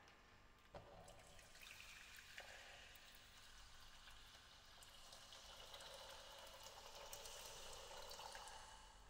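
Water poured from a kettle into a stainless steel saucepan, a faint steady splashing that grows a little fuller toward the end. There is a light tap about a second in.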